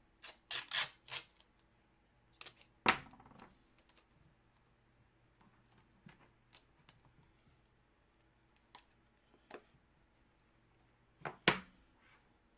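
Scattered handling noises of packaging being opened and items moved: a quick run of short scrapes and clicks in the first second, a louder one about three seconds in, a few faint taps, and a sharp snap near the end.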